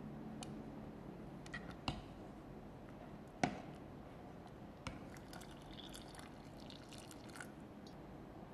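Metal ladle stirring thick porridge in a pot: faint wet squelching with a few light clinks of the ladle against the pot, the sharpest about three and a half seconds in.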